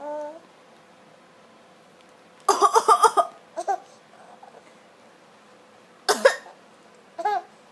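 A person coughing in two loud bursts, about two and a half and six seconds in. Short pitched laughs come at the start, after the first burst and near the end.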